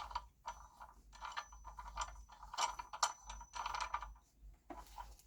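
Hand wheel of a monitor-arm desk clamp being turned to wind its threaded clamp screw, giving a run of small irregular ratcheting clicks in clusters about every half second.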